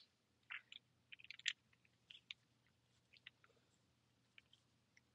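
Faint, scattered small clicks and rubs of hands working the sleeve of a Vapor Pin sampling device down over its barbs, mostly in the first half and then near silence.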